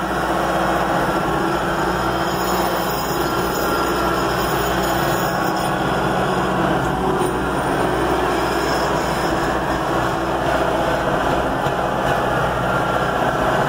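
Tractor engine running steadily, with a dense, even rumble and rattle.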